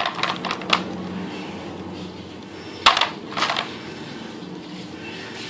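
Wooden agarwood beads clicking and clattering against each other as they are handled. A few light clicks come near the start, and a sharp click about three seconds in is followed by a brief clatter.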